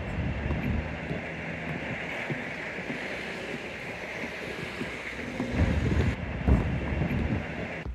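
Wind buffeting the microphone, with low rumbling gusts that are strongest in the second half, over a steady rushing noise that fits traffic on the adjacent road.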